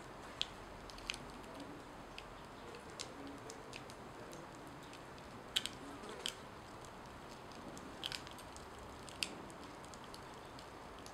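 Smouldering corn-masa tortilla crackling as it burns: faint, scattered sharp ticks and small pops, irregular and roughly one a second, over a low steady hiss.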